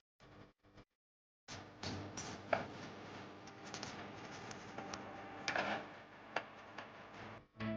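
Scattered clicks and light knocks of hand tools and small chainsaw parts being handled, over a faint hiss. The first second and a half cuts in and out to silence.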